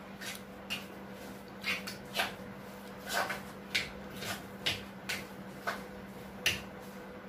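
Steel spoon clinking and scraping against a stone mortar in a dozen or so short, irregular strokes, stirring salt into freshly pounded gongura chutney.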